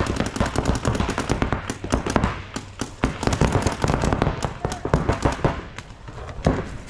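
Paintball markers firing rapid strings of shots, the cracks overlapping as several guns shoot at once, with a short lull shortly before the end and then more firing.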